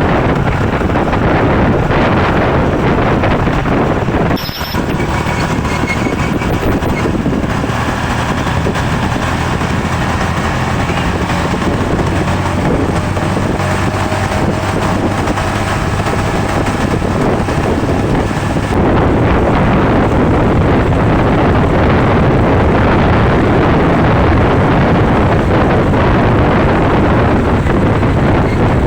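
Heavy wind rushing over the microphone of a moving vehicle, with engine and road noise underneath; the level dips briefly about four and a half seconds in and steps up slightly near the end.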